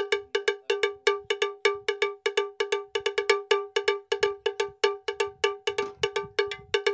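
Bell-like metal percussion struck in a fast, even, repeating rhythm of about six strikes a second, each strike on the same pitch.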